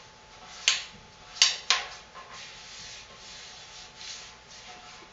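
A hand rubbing an adhesive sticker flat against a corrugated metal feed-bin wall: a faint, steady rubbing, with three short, loud strokes between about half a second and two seconds in.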